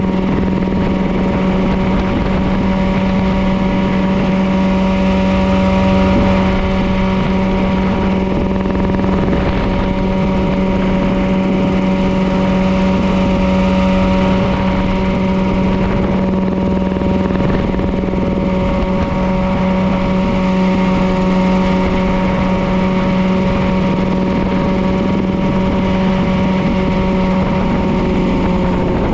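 Mirocopter SCH-2A coaxial ultralight helicopter in steady cruise flight: the engine runs at a constant note with a noisy rush underneath, with no change in power.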